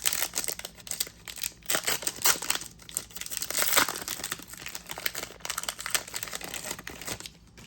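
Plastic trading-card pack wrapper crinkling and tearing as it is opened, with irregular crackles that stop just before the end.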